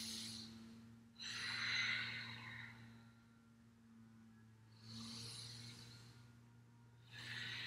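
A woman breathing audibly, long in- and out-breaths with a breathy hiss, about four of them a second or two apart, paced to a rolling cat-cow through child's pose. A faint steady low hum lies underneath.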